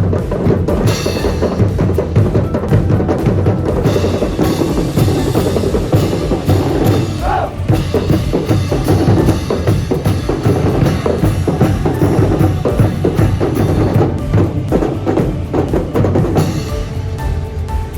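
Marching percussion section playing a fast, driving rhythm on snare drums, cymbals and other drums, with a few sustained tones coming in near the end.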